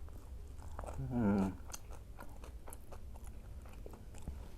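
Close-miked chewing and crunching of a mouthful of food, with many small sharp crunches and a short hummed "mm" about a second in.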